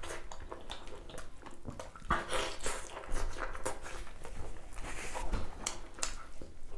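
Close-miked mukbang eating sounds: a person chewing and smacking mouthfuls of duck curry, with irregular wet clicks and bites.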